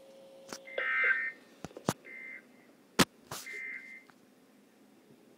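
Three short bursts of the EAS end-of-message data signal from a NOAA Weather Radio broadcast, a harsh buzzing warble, closing the warning. Sharp clicks of static fall between them, the loudest about three seconds in.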